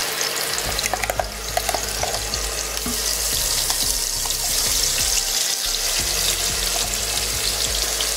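Wet ground masala paste spooned into hot oil in a non-stick pot, sizzling steadily. The sizzle grows stronger about three seconds in as more paste hits the oil, with a few spoon clinks against the pan in the first two seconds.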